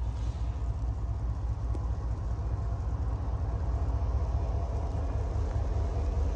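Norfolk Southern diesel freight locomotives moving at low speed, a steady low engine rumble that grows slightly louder partway through as they draw closer.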